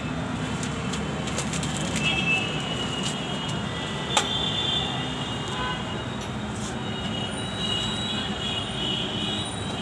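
Busy roadside street noise: a steady traffic rumble with high, thin squeals that come and go, and a single sharp click about four seconds in.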